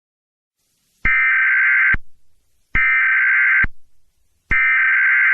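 Emergency Alert System SAME header: three bursts of warbling digital data tones, each just under a second long, starting about a second in, about 1.75 s apart. This is the coded header that opens an EAS alert before the attention tone.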